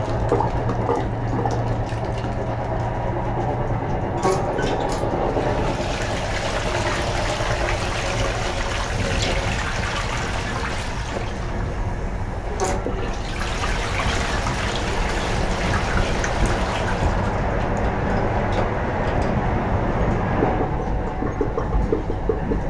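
Armitage Shanks Melrose wall-hung toilet flushing, its concealed flush valve running water steadily into the bowl, held on longer by keeping the flush handle down.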